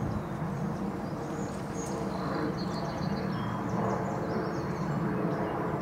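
Steady low hum of distant traffic, with faint high bird chirps through the middle.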